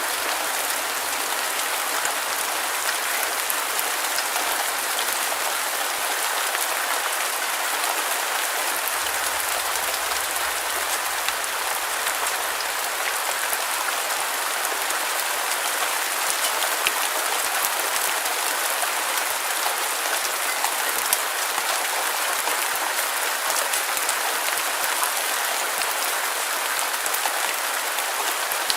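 Steady rain: a dense, even hiss of many falling drops, with faint single drop ticks scattered through it and almost no low rumble.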